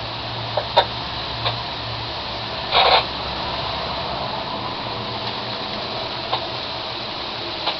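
Steady hiss during a thunderstorm, with a few sharp crackles and a short burst of noise about three seconds in, typical of an open two-way radio channel picking up static.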